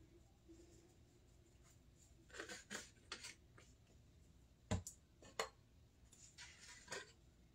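Spice bottles shaken in short rattling bursts over a glass bowl while seasoning chicken, with a few sharp clicks and one louder knock a little past halfway.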